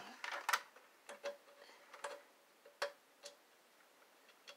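Irregular clicks and taps from a wireless cable modem and its cables being handled and plugged in. The loudest cluster comes about half a second in, then single clicks follow every half second or so.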